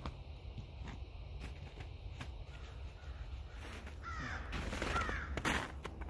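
Crows cawing, several calls in the second half, over a steady low rumble, with a sharp knock near the end.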